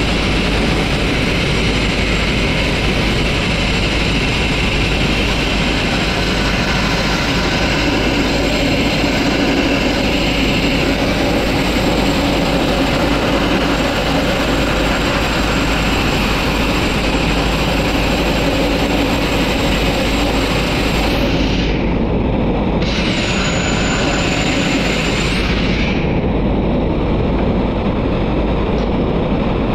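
Sandblasting: a steady, loud rush of abrasive grit blasting from the nozzle against the boat's hull, stripping old paint and rust, over the steady drone of the air compressor. The high hiss drops away for a few seconds about two-thirds of the way through.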